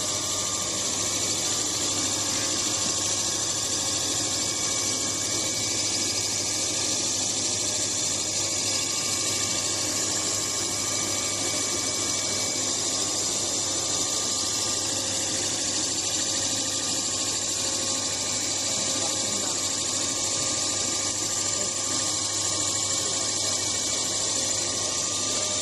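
Pet-food pellet extruder running steadily: a constant machine hum with a strong even hiss over it.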